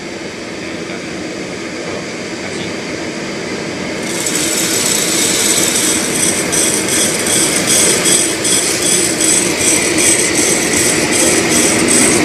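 Student-built drum coffee roaster running, with a steady motor and fan hum. About four seconds in, a louder hiss joins it, with a fast, regular rattling pulse.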